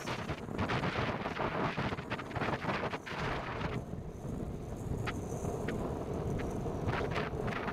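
Road noise from a vehicle moving at highway speed: a steady rumble of tyres and wind, with frequent crackles of wind buffeting the microphone.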